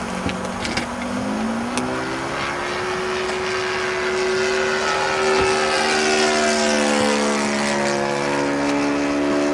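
Engine and propeller of a Goldberg Ultimate radio-controlled model biplane in flight, running steadily. The pitch climbs over the first few seconds, holds, then drops a little about seven seconds in.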